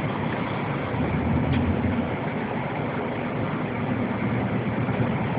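Car driving, heard from inside the cabin: a steady rumble of engine and tyre noise.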